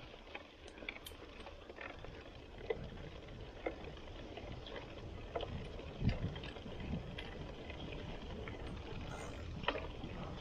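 Mountain bike rolling along a rough dirt trail: a steady low rumble from the tyres and riding, with scattered clicks and knocks from the bike over bumps.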